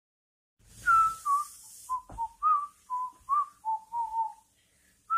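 A person whistling a tune: a string of short notes, each sliding up or down, with a brushing hiss under the first notes and a single knock about two seconds in.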